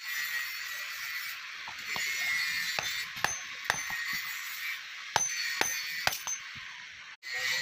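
Hand hammer striking red-hot steel on an anvil: a string of uneven blows, each with a short metallic ring, over a steady hiss.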